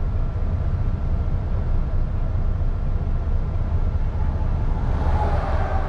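Steady low rumble inside a lorry's cab: the diesel engine and road noise as the truck creeps along in slow traffic, with a swell of higher rushing noise near the end.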